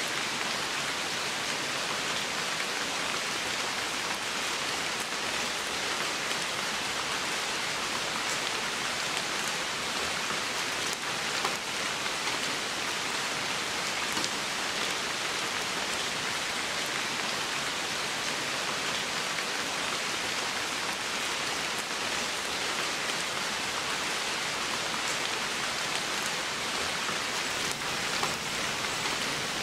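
Steady rain falling through wet forest foliage, an even hiss with a few louder single drops.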